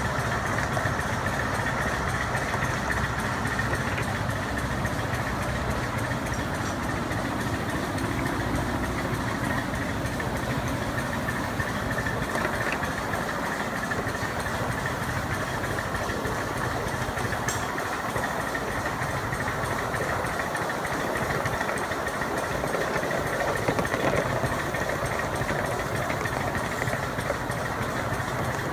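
1-inch-scale ride-on miniature train running steadily along its track: the locomotive's engine drones evenly, mixed with the rumble of the riding cars rolling on the rails.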